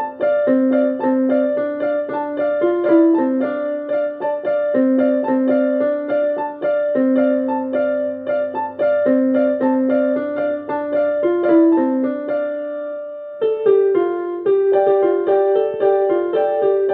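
Telolet basuri horn playing a quick, repeating melody of short notes. About 13 seconds in, the tune holds one note and briefly dips, then carries on in a higher register.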